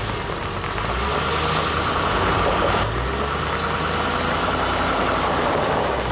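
Crickets chirping in a steady repeating rhythm, about two to three chirps a second, stopping about five seconds in, over a low steady rumble.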